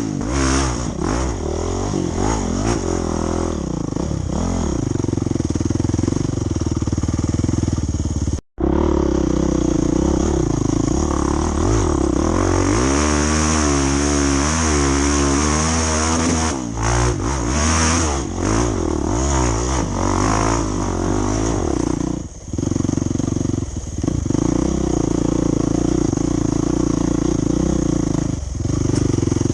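Off-road dirt bike engine revving up and down as it is ridden over trail terrain, its pitch rising and falling with throttle and gear changes. The sound cuts out for an instant about eight seconds in.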